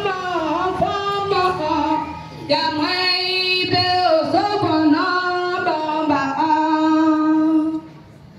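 Women's church choir singing together in held, gliding phrases, with a brief breath about two seconds in; the singing stops shortly before the end.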